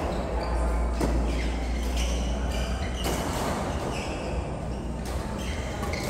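Doubles court-sport rally: sharp hits about once a second, with short high squeaks of shoes on the court floor, over a steady low hum.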